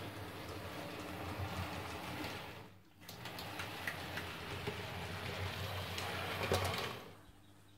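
TT-scale model train running along the layout: a steady low electric hum with light clicking of the wheels over rail joints and points. The sound drops out briefly about three seconds in and fades away near the end.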